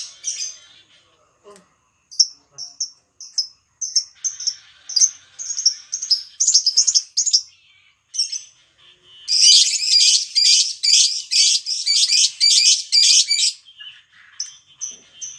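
Lovebird calling in short, high, repeated chirps that quicken into a long, rapid, unbroken chattering run about nine seconds in, lasting some four seconds. This is the continuous 'ngekek' chatter that lovebird keepers play to set their own birds calling.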